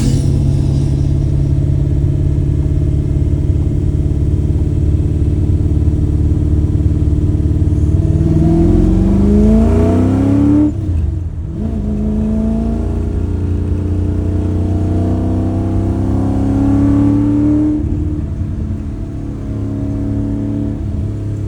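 Exhaust of a 1965 Mustang's 363 stroker V8, running through a 2.5-inch side-exit system with an X-pipe and Borla mufflers. It runs at a steady note for about eight seconds, then the revs climb for a couple of seconds and drop off suddenly. The revs climb again more slowly and fall back near the end.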